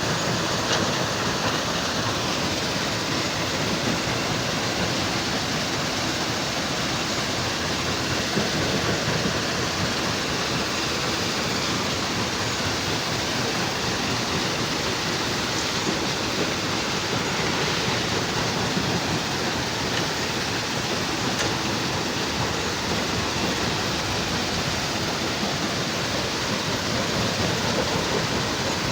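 Heavy machinery running steadily, heard as a continuous even rumble and hiss with no distinct knocks or changes.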